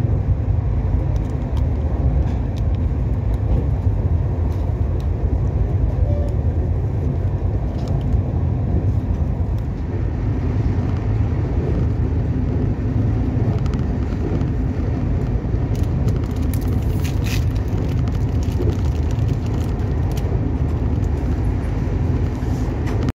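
Steady low rumble inside a moving Shatabdi Express passenger coach as it runs along the track, with a few faint clicks about two-thirds of the way through.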